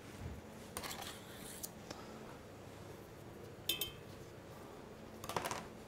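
Quiet handling of a knife and kitchen utensils at a stainless steel counter: a soft knock near the start, a brief rustle, a short metallic clink a little past halfway and another rustle near the end, over a faint steady background hum.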